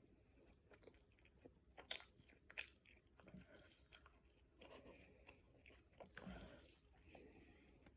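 Faint close-up chewing and wet mouth noises of someone eating, with a few sharp clicks, the loudest about two seconds in.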